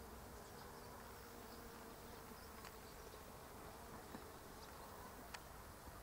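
Faint buzzing of bees: a steady hum that fades after about two seconds, with a few light ticks.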